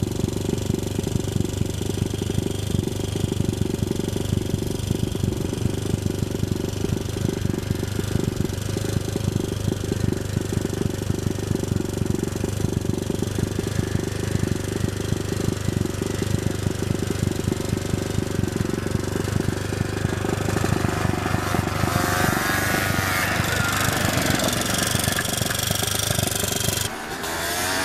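Honda ATC200X three-wheeler's single-cylinder four-stroke engine running under way, heard close from a handlebar-mounted camera as a fast, rattly pulsing. Its pitch rises and falls several times in the last few seconds. About a second before the end a cut brings in a different, steadier engine note.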